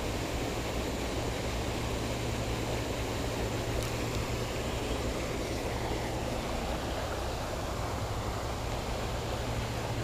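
Steady rush of creek water spilling over a small riffle.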